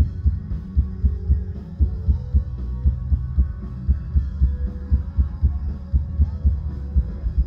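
Live rock band playing loud, bass-heavy music with a steady kick-drum beat and electric guitar.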